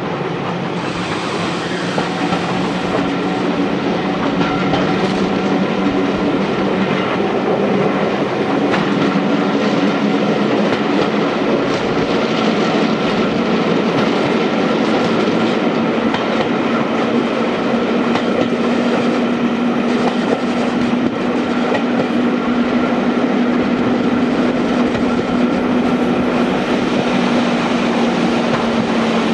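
Heritage railway passenger coaches running along the track, heard from an open carriage window: a steady rumble of wheels on rails with clickety-clack and a steady low hum.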